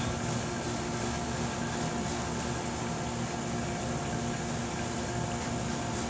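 Steady, even mechanical hum and whir of machinery running, unchanging throughout.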